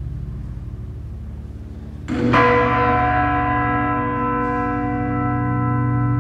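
Large bronze bell struck once about two seconds in, then ringing on with many steady overtones over a low hum.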